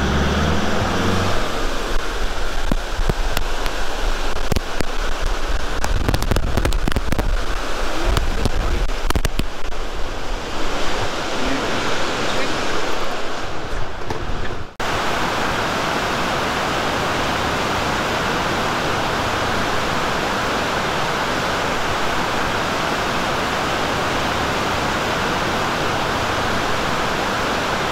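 Heavy rushing water from the Låtefossen waterfall. Over the first half it comes with a low rumble and scattered knocks. After a sudden cut about halfway through it becomes an even, steady rush.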